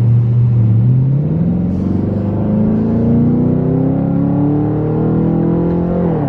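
2010 Chevrolet Camaro SS's 6.2-litre V8 with a Borla exhaust, heard from inside the cabin, accelerating hard. The revs climb steadily for about five seconds, then the pitch drops suddenly near the end as the six-speed automatic shifts up.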